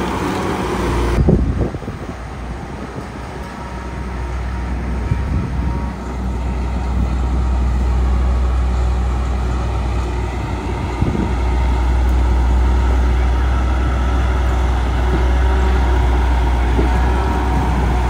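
Heavy diesel construction machinery running steadily with a deep engine drone, broken by a few short knocks.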